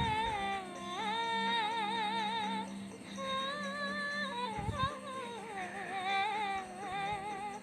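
A woman singing a dangdut melody without clear words, long held notes with heavy, fast vibrato in two phrases, over a backing track.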